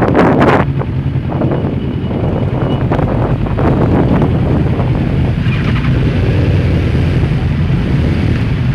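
Motorcycle engines idling steadily, picked up by a bike-mounted camera. A burst of wind hits the microphone in the first half-second as the bike rolls to a stop.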